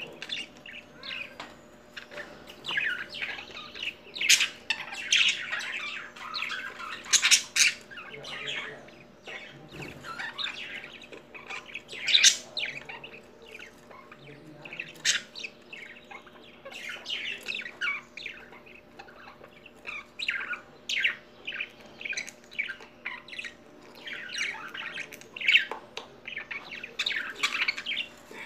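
A breeding pair of budgerigars chattering at their nest box: a continuous run of short chirps and warbles, broken every few seconds by sharper, louder squawks.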